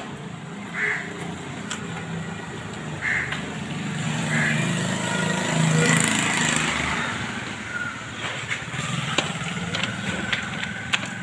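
A motor vehicle's engine passing, swelling to its loudest about six seconds in and then fading. Over it come faint clicks of kittens crunching dry kibble.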